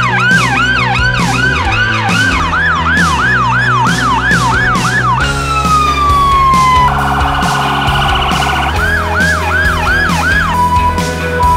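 Emergency vehicle sirens in a fast yelp, sliding down about five seconds in, then a rapid warble, then yelping again and settling to a steady tone near the end, over background music with a steady beat.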